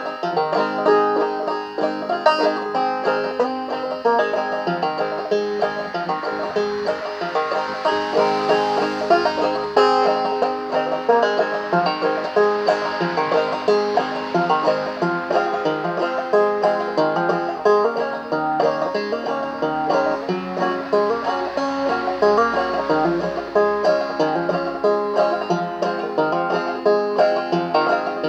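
Banjo played clawhammer style: a steady, rhythmic run of picked notes and brushed strums, with a constant low note ringing underneath.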